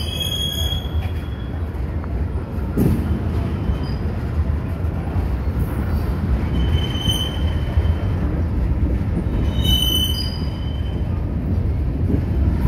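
Freight train of tank cars and covered hoppers rolling past, a steady low rumble of wheels on rail. Brief high-pitched wheel squeals come at the start, about seven seconds in and again about ten seconds in, with a single knock about three seconds in.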